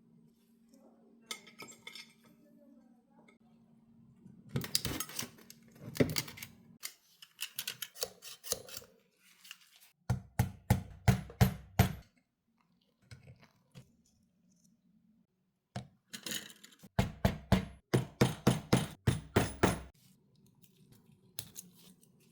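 Small metal parts clinking and being tapped, with two runs of quick, even taps about four a second, one near the middle and a longer one later.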